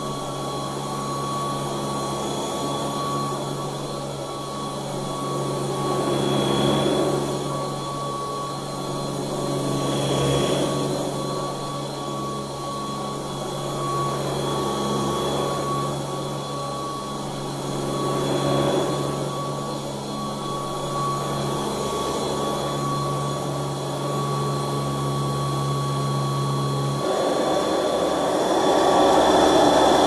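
Vintage Royal 608 commercial upright vacuum cleaner's 4.5-amp motor running on shag carpet: a steady hum and whine that swells every few seconds as it is pushed back and forth. Near the end the hum gives way to a louder, rougher rush of air as the cleaner is tipped back off the carpet.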